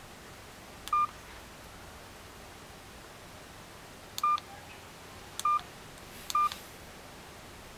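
Key-press beeps of a dual-SIM touchscreen GSM phone: four short, identical high beeps as keys are pressed to leave the music player and open the menus, one about a second in and three close together later on.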